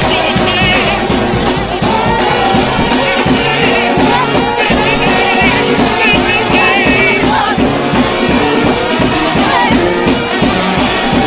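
A United House of Prayer shout band, a trombone choir, playing loud gospel shout music with a steady drum beat underneath.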